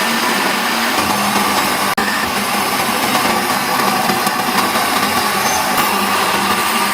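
Loud, steady workshop machinery noise with a whirring, grinding character. It drops out for an instant about two seconds in.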